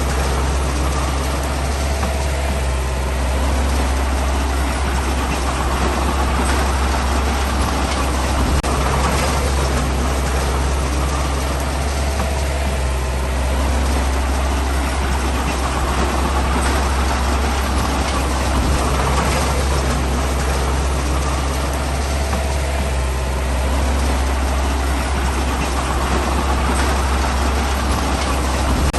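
Heavy diesel engine of earthmoving machinery running steadily, a strong low drone that barely changes.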